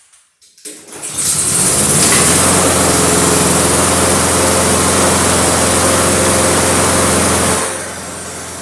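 Honda 5.5 horsepower mower engine pull-started: it catches about a second in and runs steadily at a fast speed. It drops to a quieter level near the end. The engine is starting and running despite having been reported as a no-start.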